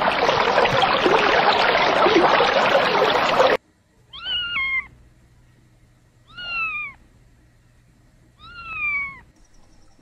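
A loud, steady rushing noise cuts off suddenly about three and a half seconds in. Then come three short meows, each falling in pitch, about two seconds apart.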